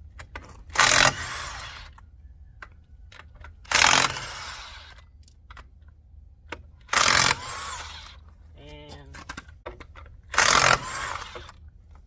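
Impact wrench with a 21 mm socket firing in four short bursts about three seconds apart, loosening the lug nuts on a dually's rear wheels. Each burst is loud at the start and dies away over about a second.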